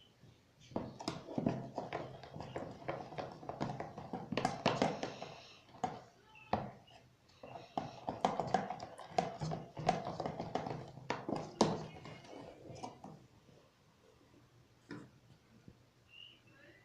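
Spoon stirring slime made from glue and borax water: a run of irregular clicks and taps with wet squelching as the mixture starts to come together, dying away about thirteen seconds in.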